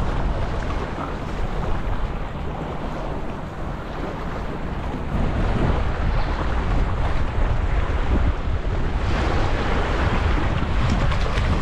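Wind buffeting the microphone over choppy harbour water lapping against shoreline rocks, swelling louder in the second half.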